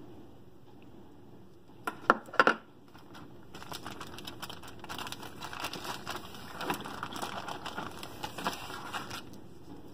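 A few sharp knocks about two seconds in, then a clear plastic zip-lock bag crinkling for several seconds as a hand rummages through it.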